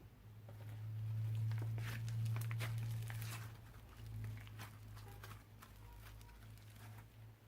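Revived slime being stretched and squeezed by hand, giving off many small irregular crackles and clicks over a steady low hum.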